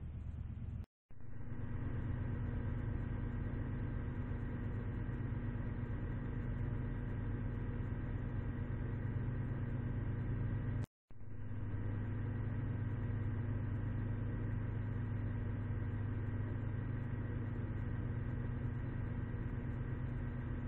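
Steady low machine hum with several held tones. It cuts out for an instant about a second in and again about halfway through.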